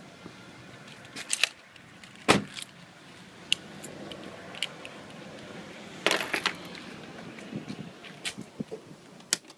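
Keys jangling with scattered clicks and knocks from handling the car: one sharp knock about two seconds in, and a short rattling clatter about six seconds in.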